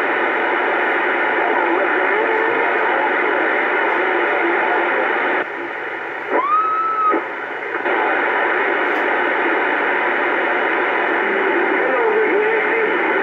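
Uniden Bearcat 980 CB radio receiving on AM channel 28: a steady hiss of band noise with faint, garbled voices in it. A little past halfway a station keys up and the hiss drops out for about two seconds. In that gap a tone rises and holds for about a second, then the hiss comes back.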